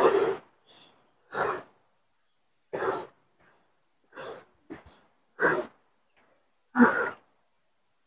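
A woman breathing hard while climbing a steep trail, with about six heavy breaths, one roughly every second and a half: she is out of breath from the exertion.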